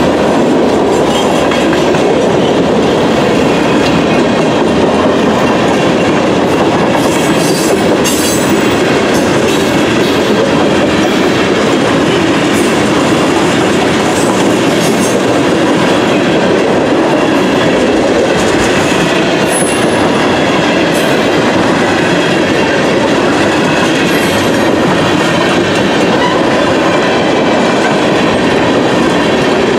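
Freight train cars rolling steadily past, a continuous rumble and clatter of steel wheels on the rails with no letup.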